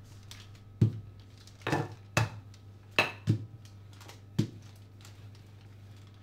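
Wooden rolling pin being pushed back and forth over dough on baking paper on a granite counter, giving about six sharp, irregular knocks and clicks in the first four and a half seconds. A steady low hum runs underneath.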